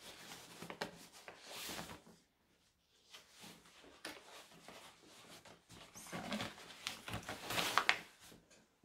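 Rustling and light clicking of a plastic blister-packed baby care kit and a fabric bag being handled as items are packed back into a diaper bag pocket. It pauses briefly about two seconds in and grows louder near the end.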